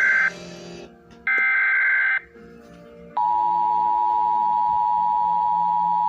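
Emergency Alert System SAME header: raspy digital data bursts about a second long, the end of one and then a whole second a second later, followed about three seconds in by the steady alert attention tone. Faint music plays underneath.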